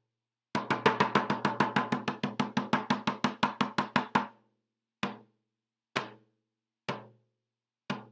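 A drum struck rapidly, about eight beats a second, for three and a half seconds. It then stops and is struck slowly, four single beats about a second apart.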